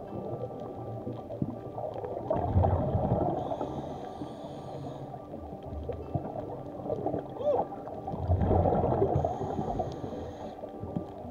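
Scuba diver breathing through a regulator underwater: a gurgling rush of exhaled bubbles about two seconds in, then a hissing inhale, and the same cycle again about six seconds later.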